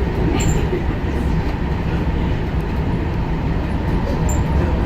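Washington Metro subway train running, a steady rumble of wheels on rail heard from inside the car.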